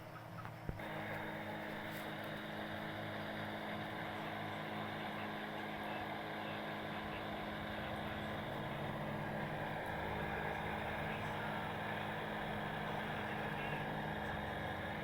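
Battery-powered electric sprayer's pump motor switched on with a click just under a second in, then running with a steady hum.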